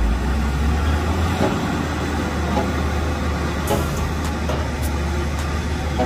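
Volvo motor grader's diesel engine running with a steady low hum as the machine grades dirt with its blade down.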